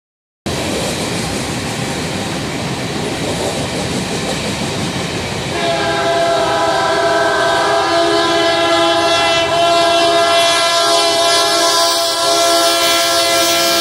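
Freight train cars rolling past with rumbling and clickety-clack of wheels on rail joints; about five seconds in, an approaching Union Pacific GE freight locomotive sounds its multi-note air horn in one long, steady chord that holds to the end.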